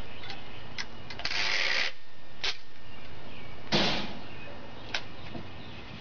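Packing tape being torn off the roll and pressed onto cardboard boxes: a rasping rip lasting about half a second starts about a second in, and a shorter, louder rip comes near four seconds. A few sharp clicks and taps on the cardboard fall in between.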